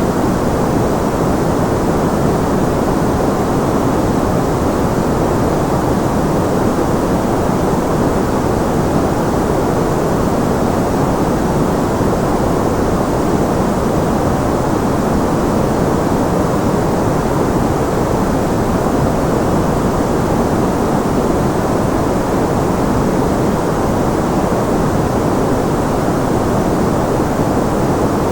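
Steady synthetic white noise, filtered so that most of it sits in the low and middle range with little treble, giving a deep, even hiss that does not change.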